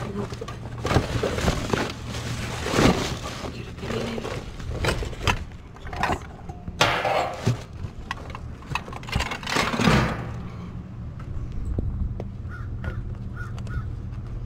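Plastic bags and cardboard crinkling, rustling and scraping as trash is rummaged through in a dumpster. It is busy and loud for about ten seconds, then settles, over a steady low hum.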